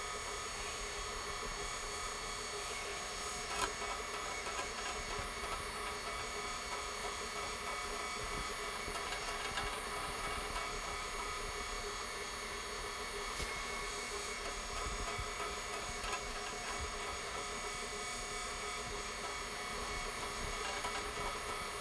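Rotary floor buffer running steadily, a steady drone with several held tones, as its 100-grit sanding screen scuffs a cured metallic epoxy floor to knock off burrs.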